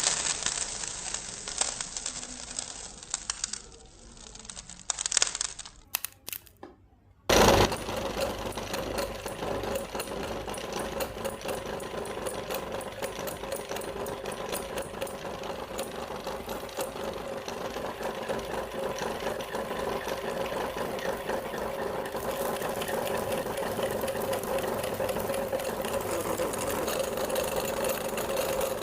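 Electric meat grinder starting abruptly about seven seconds in and running steadily, grinding candy. Before it starts there are shorter, irregular handling noises.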